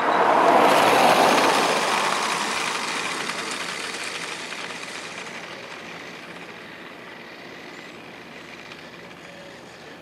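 New Bright toy remote-control Corvette Z06 driving off across asphalt, its motor and wheels running. Loudest about a second in, then fading steadily as the car drives away.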